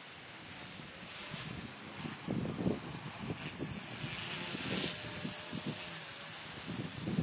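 Blade mCP X micro RC helicopter, converted to an HP-05 brushless motor, flying: a thin high-pitched whine from the motor and rotors that wavers up and down in pitch as the throttle changes. Low rumbling noise on the microphone comes in from about two seconds in.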